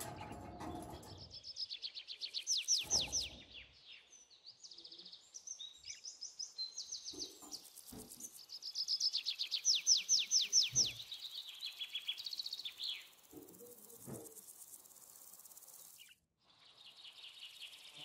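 Budgerigar chattering and warbling in fast runs of high chirps, loudest about two to three seconds in and again around nine to eleven seconds, with a few soft low knocks in between.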